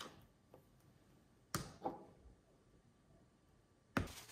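Near silence with faint sounds of chili seasoning paste being worked by hand and spoon in a plastic tub: one soft short sound about a second and a half in, a smaller one just after, and a sharp click near the end.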